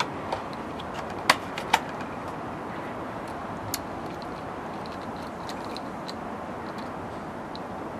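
A few sharp clicks or taps, two loud ones close together about a second and a half in and a smaller one a couple of seconds later, over a steady background hiss.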